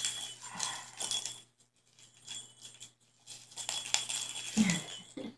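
A kitten's bell toy jingling and rattling in two bursts as it is batted about, with a dull thump near the end.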